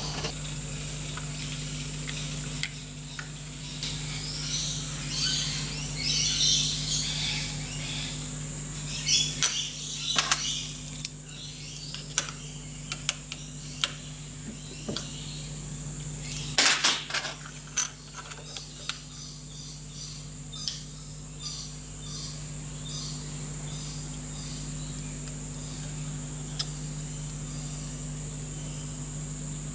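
Hand scriber scratching along the edge of a template on a metal disc, marking out a sector plate, in short strokes with scattered clicks and one louder knock about 17 seconds in. A steady low hum and a thin high whine run underneath.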